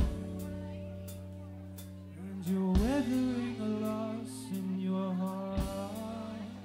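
Indie rock band playing live, with long held chords under a male singer's voice. The chords change about every three seconds.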